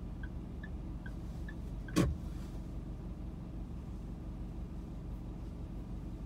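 Inside a stationary car: steady low hum of the idling engine, with a turn-signal indicator ticking about two and a half times a second. About two seconds in there is a single sharp knock, and the ticking stops with it.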